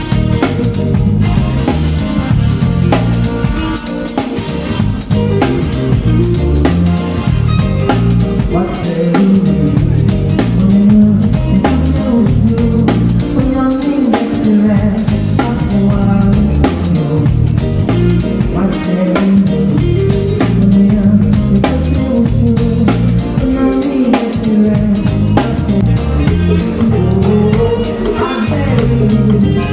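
A live band playing continuously: drum kit, bass and guitar, with some singing.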